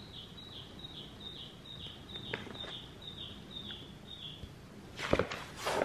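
Baby chicks peeping: a regular run of high, falling cheeps, about two or three a second, that stops about four and a half seconds in. Near the end comes a loud paper rustle as a page of a large picture book is turned.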